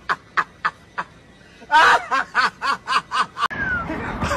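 A person laughing in short, quick snickers, about four or five a second, in two runs with a short pause between them. About three and a half seconds in, it cuts to steady outdoor background noise.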